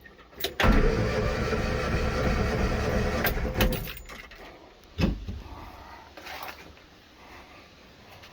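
Morris Minor Traveller's four-cylinder engine cranked over on the starter motor for about three seconds during a compression test, followed by a short second burst of cranking about five seconds in.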